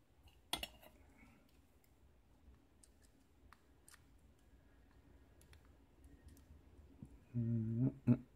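Small metal clicks and ticks of steel tweezers working pins out of a disassembled Abus euro cylinder lock: one sharper click about half a second in, then faint scattered ticks. A short hum comes near the end.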